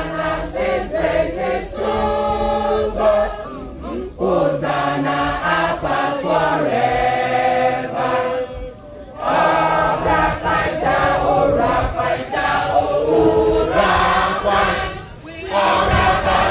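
A mixed group of men and women singing their school anthem together, in long held phrases with brief pauses between them.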